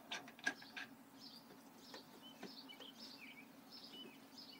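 Faint metal clicks as a brass quick-connect fitting is handled and threaded onto a pressure washer's water inlet, then a few faint bird chirps over a low steady hum.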